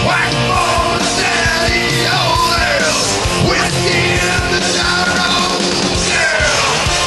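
Rock song: a voice singing, at times close to yelling, over a full band with a steady drum beat.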